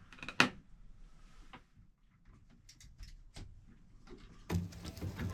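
A sharp click about half a second in, followed by a few fainter clicks and handling noise of gear being moved.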